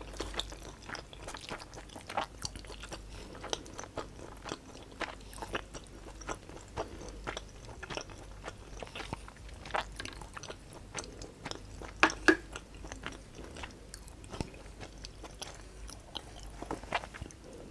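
A person chewing Samyang jjajang black bean instant noodles close to a clip-on microphone: many short, irregular mouth clicks, a little louder about twelve seconds in.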